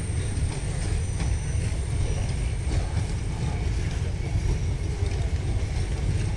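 Passenger train coaches rolling slowly along the track as the train pulls into the station: a steady low rumble with occasional faint clicks.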